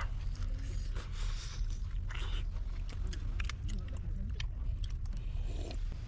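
Close-up biting and chewing as a grilled lamb rib is eaten off the bone, with many small clicks and smacks, over a steady low rumble.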